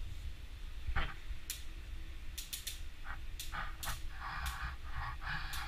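Pet red fox trotting across a tile floor, its claws giving a string of sharp, uneven clicks, with a brief squeak about a second in and rough hissy sounds near the end.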